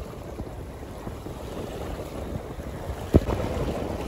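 Wind buffeting the microphone over small waves washing onto a muddy shore, a steady rushing noise, with a single sharp thump about three seconds in.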